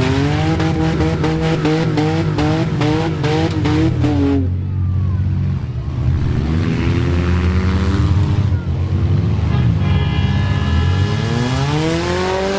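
Several demolition derby cars' engines running loudly. For the first four seconds or so, one engine is revved in quick repeated bursts, about three a second. Near the end, an engine revs up in one long sweep and drops back down.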